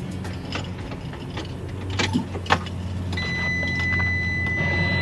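Sharp clicks and clatter from handling a diagnostic scan tool and its cable at the van's dashboard, over a steady low hum. About three seconds in, a steady high-pitched tone comes on and holds.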